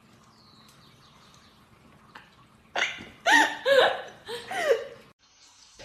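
An animal gives a string of four or five short calls, each bending up and down in pitch. They start about halfway in, after a quieter stretch.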